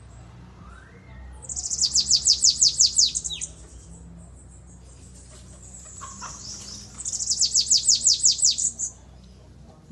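Caged bananaquit (sibite) singing two fast, trilled phrases of high, downward-slurred notes, about eight a second: one starting about a second and a half in, the other about seven seconds in, with a few soft calls between. This is the 'belga corrido' song style that the owner is showing off.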